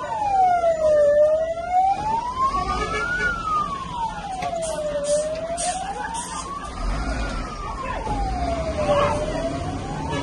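Fire engine siren wailing slowly up and down, each rise and fall taking about four seconds, over crowd noise at a house fire, with a low rumble joining in the second half.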